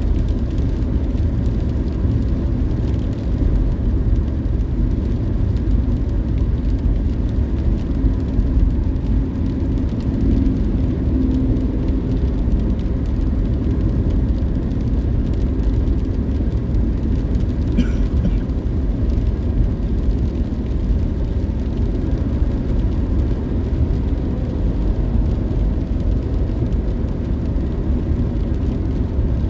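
A car driving along the road: a steady low rumble of road and engine noise.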